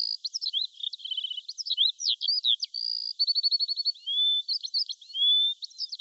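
Songbirds chirping and singing: a quick, varied run of short chirps, with a couple of fast trills and a few rising whistles.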